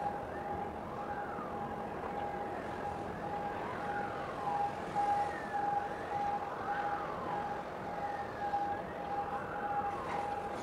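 A siren wailing, its pitch rising and falling every second or two, over a steady high tone that pulses on and off.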